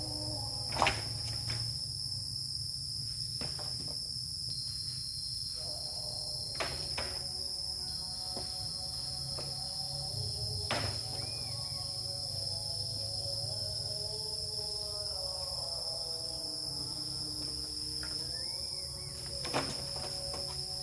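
Night chorus of crickets, a steady high-pitched drone, with three sharp clicks and faint wavering lower tones beneath it.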